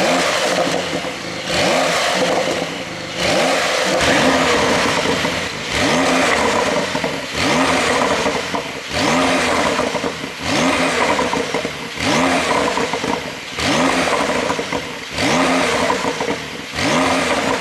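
Porsche 911 Carrera S (992) twin-turbo flat-six exhaust, with the exhaust flaps held fully open by an ECU tune, revved over and over in short blips about once every second and a half. Each rev rises and falls in pitch.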